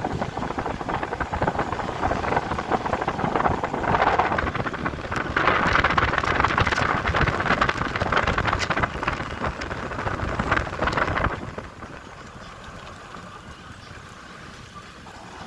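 Wind rushing and buffeting on the microphone, with the rumble of a moving vehicle on the road underneath. The noise is loud for most of the stretch, then drops to a quieter rumble about three-quarters of the way through.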